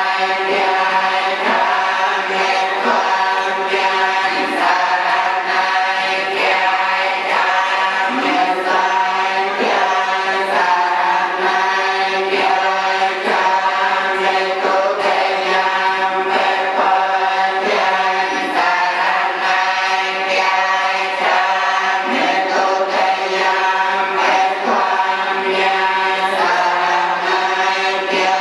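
A Buddhist litany chanted by many voices together, a continuous chant held on steady pitches that step up and down every second or two.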